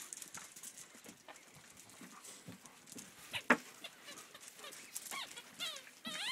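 German Shepherd puppies at play, with scattered scuffles and clicks and a sharp knock about three and a half seconds in; near the end a puppy gives a quick run of short, high whines that rise and fall.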